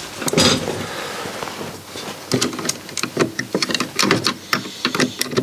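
Screwdriver working a small screw into the metal chassis of a Yamaha CD-640 CD player's drive section: irregular small clicks and scrapes of metal on metal, coming thicker from about two seconds in.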